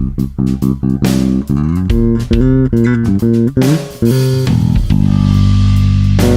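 Ibanez SR300 electric bass played: a quick run of plucked notes with sharp attacks, then a single held note ringing out from about five seconds in.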